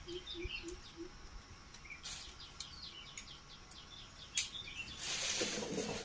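Small birds chirping repeatedly in quick high notes. About four seconds in there is a sharp click, and near the end a short rustling hiss.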